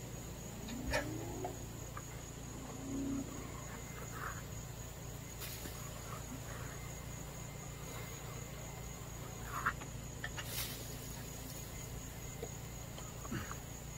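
Steady high-pitched trill of insects such as crickets, with a low hum underneath. A few light clicks and knocks come as the ladder and the metal-guarded gutter are handled.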